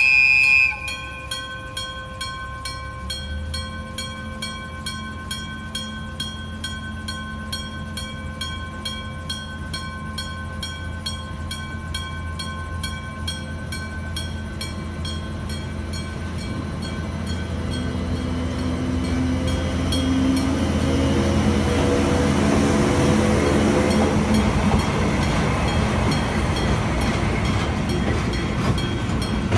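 A high horn note cuts off within the first second. A level-crossing warning bell then rings in a fast, even rhythm. From about halfway the locomotives' approach grows steadily louder, a rumble with a whine rising in pitch from the nose-suspended traction motors as the HD300-28 and ND60 1 pair comes up to the crossing.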